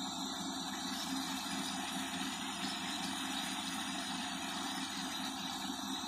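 Paddlewheel aerator running in a fish pond: a steady motor hum under the continuous churning splash of the paddle wheels beating the water.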